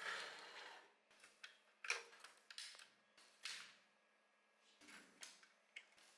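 Quiet handling sounds of a diecast model car on a wooden tabletop: a scrape lasting most of a second at the start, then a string of sharp clicks and short scrapes from metal tweezers and a screwdriver working on the car's wheel and baseplate. The sharpest click comes about two seconds in.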